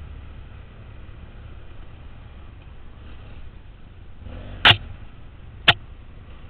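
Two sharp knocks about a second apart, close to the helmet camera, over the low steady running of a dual-sport motorcycle riding a dirt track.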